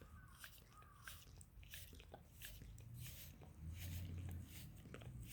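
Mixed-breed dog licking close to the microphone: a run of faint, irregular wet smacking clicks, with a low rumble about four seconds in.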